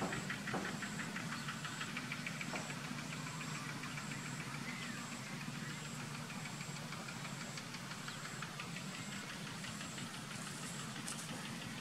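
A steady low hum like an engine running, with a faint high-pitched tone that keeps cutting on and off and a fast ticking over the first few seconds.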